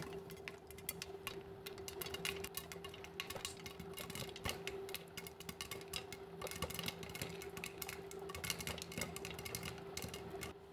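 Popcorn kernels popping, many sharp irregular pops several times a second over a steady hum.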